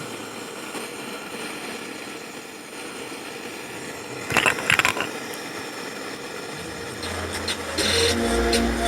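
Steady hiss and buzz from a faulty home theatre satellite speaker, a fault that keeps it making noise even with the volume at zero. A short rattle of clicks comes about halfway, and music starts near the end.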